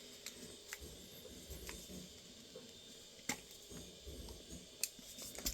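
A few faint, sharp clicks and taps of small metal tools being handled from a pistol toolkit, the clearest two a little past the middle and near the end.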